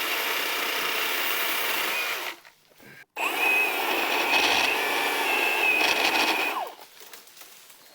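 Milwaukee M18 battery-powered pole saw running in two bursts with a short pause between, its electric motor giving a steady whine over the rasp of the chain cutting into a branch, as an undercut is made.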